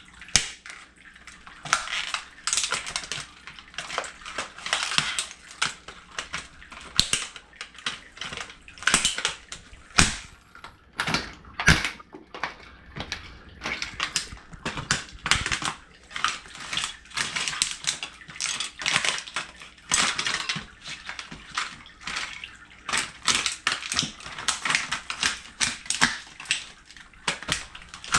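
A plastic alarm clock being crushed under Wesco harness boots: a rapid, irregular run of cracking, crunching and clattering plastic as the soles grind and stomp the pieces on cardboard. There are a couple of heavier stomps midway.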